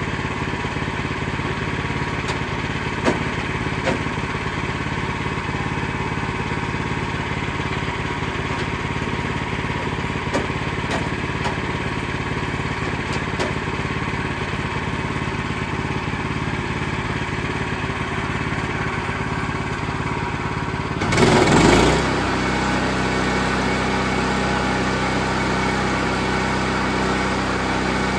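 Sawmill's engine running steadily. About 21 seconds in there is a brief, louder burst of noise, after which the engine settles into a different steady note.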